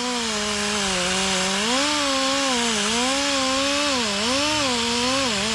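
Rotary power tool spinning an abrasive pad against the gasket face of a Honda Civic cylinder head, cleaning the old gasket off the metal. The motor whine dips and recovers every second or so as the pad is pressed on and eased off, over a steady scrubbing hiss.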